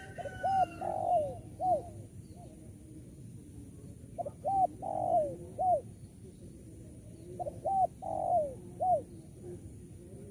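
Spotted dove (tekukur) cooing its song three times, about three seconds apart. Each phrase is a couple of short notes, one longer rolling note, then a short closing note.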